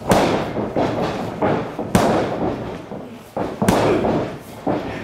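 Boxing-glove punches landing in a sparring exchange: several sharp smacks, the hardest at the very start, about two seconds in and just before four seconds, with softer hits and scuffling between.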